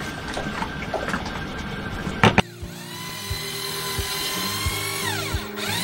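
A few knocks as the plywood board is handled, then a small hand-held circular saw starts up with a rising whine and runs, cutting relief kerfs into a warped plywood hatch cover. Its whine winds down and spins back up near the end, under background music.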